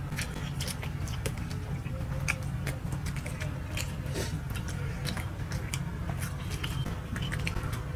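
Close-up mouth sounds of people chewing and biting soft chitoi pitha rice cakes with vorta: scattered wet clicks and smacks, over a steady low hum.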